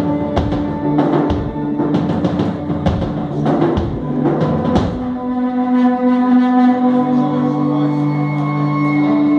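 Heavy live hardcore music: a loud distorted electric guitar through a Marshall amp, with drum-kit hits crashing over it for the first five seconds or so. After that the drums stop and a steady guitar drone, or feedback, is held on its own.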